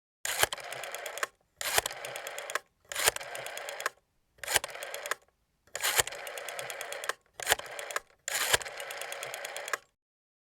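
Rotary telephone dial turned and released seven times, each spin-back a short run of rapid, even clicks of different length, with short pauses between.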